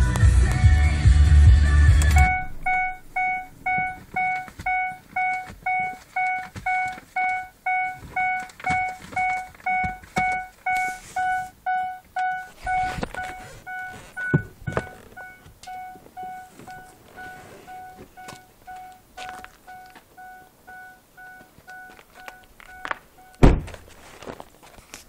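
Music and a low rumble from a car's stereo and running engine cut off suddenly about two seconds in as it is switched off. A car's dashboard warning chime then dings over and over, about one and a half times a second, growing fainter after about twelve seconds and stopping shortly before a car door slams shut near the end.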